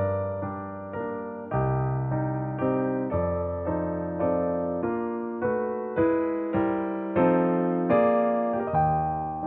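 Background music: electric piano playing slow sustained chords, a new chord struck about every half second and fading away.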